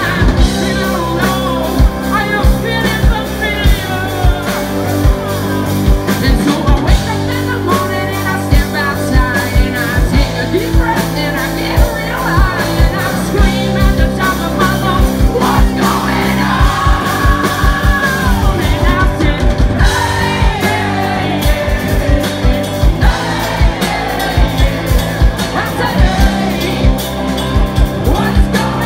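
Live rock band playing: drum kit with regular kick and snare hits, electric guitars and bass guitar, with a wavering lead line over the top. A quick flurry of drum hits comes about two-thirds of the way through.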